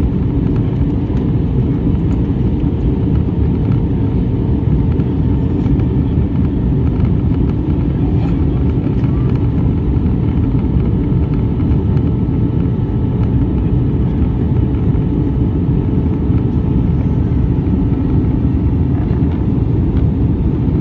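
Steady, loud low rumble of a moving vehicle, with a faint steady hum above it.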